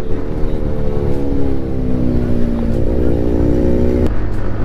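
Two-wheeler engine running on the move, its drone drifting slowly in pitch over a low wind rumble on the microphone; the engine tone cuts off suddenly about four seconds in.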